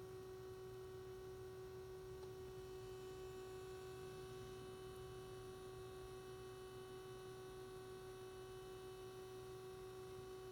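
Uniden SDS200 scanner radio making an unwanted steady hum while idle at its menu screen, not receiving any signal. The hum holds one pitch with a few fainter higher overtones and does not change.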